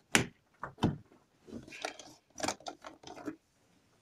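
A plastic jug of liquid being shaken by hand, with the liquid sloshing and the plastic knocking in a string of irregular strokes.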